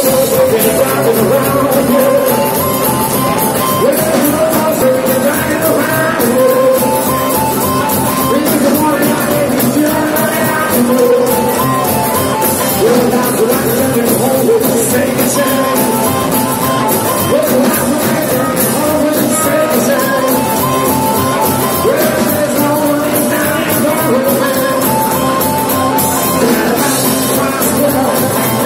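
Live rock-and-roll band playing, with a harmonica taking the lead over upright bass and acoustic and electric guitars.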